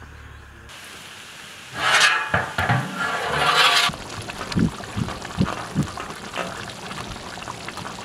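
A large pot of thick tamarind-and-coconut curry gravy at a hard boil: a loud bubbling hiss for about two seconds, then thick bubbles bursting in slower, separate plops.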